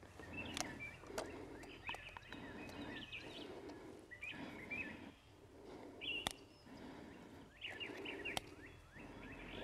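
Faint bird chirps, with a few sharp clicks and soft handling noise from a Taurus Judge revolver being loaded with .410 shot shells. The sharpest click comes about six seconds in.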